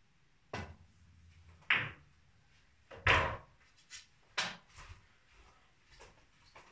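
Snooker balls on a pool table. The cue tip strikes the cue ball, then about a second later the cue ball clacks into a red. The loudest, deepest knock comes around three seconds in as the red drops into a pocket, followed by a few lighter knocks.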